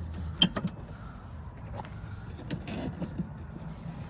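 Sharp clicks and small rattles from a turn-signal bulb socket and its wiring being worked loose from the light housing. The loudest is a single ringing click about half a second in, then a few lighter clicks and a brief scrape.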